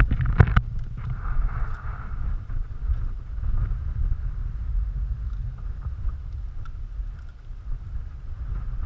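Wind buffeting the camera microphone, making a steady low rumble. A brief cluster of sharp crackles comes about half a second in.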